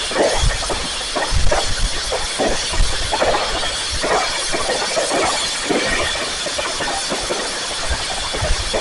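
Fireworks crackling densely, with many irregular pops and low bangs overlapping.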